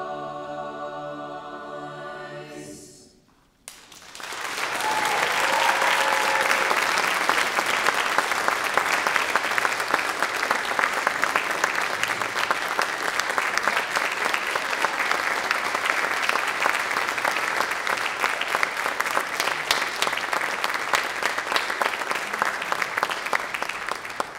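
A mixed choir's final held chord, fading out about three seconds in; after a brief hush the audience breaks into loud, sustained applause.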